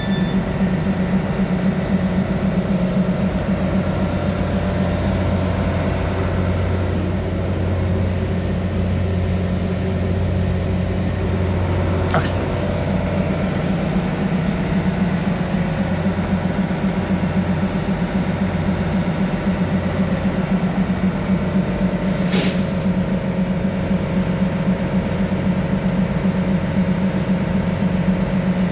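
Low steady hum of an EMU3000 electric multiple unit standing at the platform with its doors open, its onboard equipment running. A brief hiss sounds about 22 seconds in.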